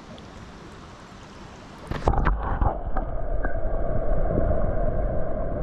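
Stream water, then a splash about two seconds in as a brown trout is released by hand into the shallow water. After the splash the sound turns muffled and rumbling, with the microphone at or under the water surface.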